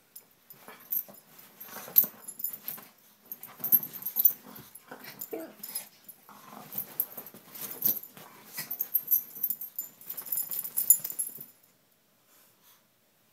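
Dogs play-fighting: growling and heavy breathing noises in irregular spurts, stopping about a second and a half before the end.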